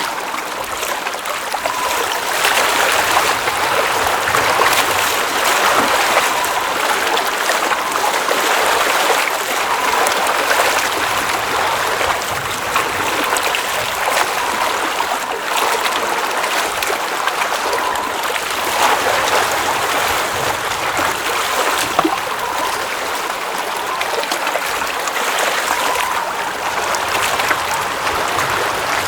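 Water in a glacial mountain lake, trickling and gurgling steadily with small rises and falls.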